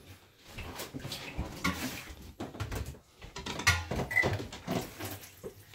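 Irregular knocks and clatter of kitchen handling: a rice-cooker pot and a steel bowl carried over and set down on a stainless-steel sink counter.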